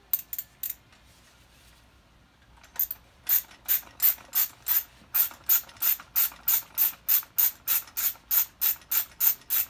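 Socket ratchet clicking as it screws the fork cap of a 2009 Honda CRF450 fork down. There are three quick clicks at the start, then from about three seconds in a steady run of about three clicks a second.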